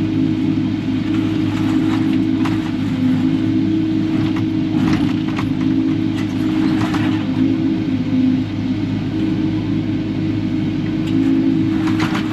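Kubota KX080-4 excavator's diesel engine running steadily under digging load, with scattered clanks and knocks as the bucket works through wire and scrap metal.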